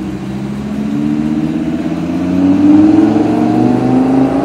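Lamborghini Huracán's V10 engine accelerating hard past, the note climbing steadily in pitch and getting louder, loudest about three seconds in.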